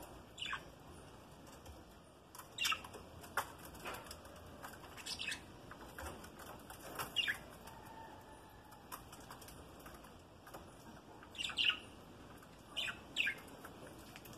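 A flock of budgerigars in an aviary giving short, sharp chirps, about a dozen scattered irregularly, most of them falling in pitch, with some wing fluttering.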